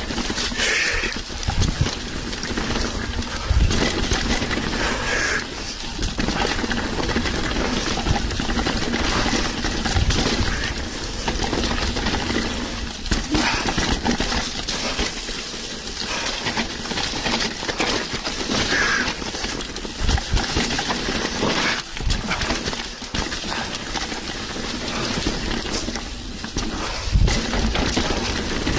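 Mountain bike descending a downhill trail: tyres rumbling over gravel and rock, with the bike's chain and frame rattling and knocking throughout.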